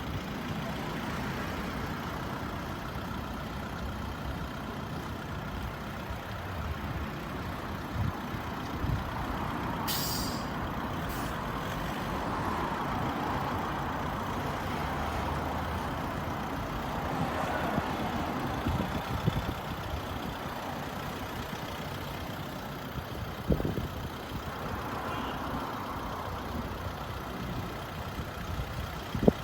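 Steady vehicle noise, with a short hiss of air about ten seconds in from the Volkswagen Jetta's air suspension, and a couple of knocks near the end.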